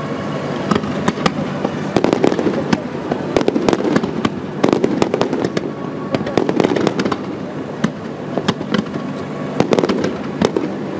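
Fireworks display: a dense, unbroken run of sharp cracks and pops as many comets and small shells fire and burst together.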